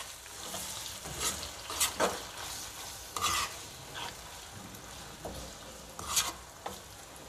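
Orange spatula scraping and stirring chopped tomatoes with fried onions and ginger-garlic paste in a non-stick karahi, over a faint sizzle of frying in oil. The scrapes come irregularly, about one every second.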